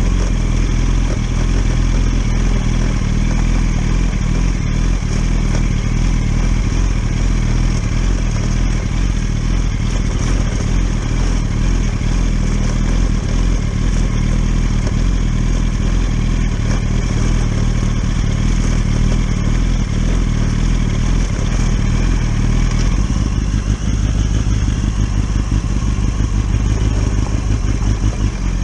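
Litre-class sport motorcycle engine running steadily while riding. The engine note changes about 23 seconds in.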